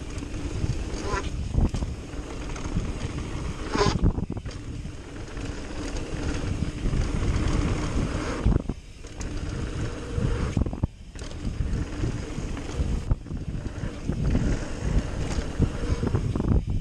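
Mountain bike riding down a dirt jump trail, heard from a handlebar-mounted camera: wind rushing over the microphone, tyres rolling on packed dirt and the bike rattling over bumps. The rush drops out briefly a few times.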